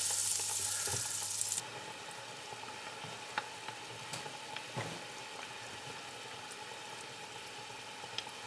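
A breaded meat croquette deep-frying in a pot of hot fat: a steady sizzle with scattered pops and crackles, loud at first and dropping suddenly to a softer sizzle about a second and a half in.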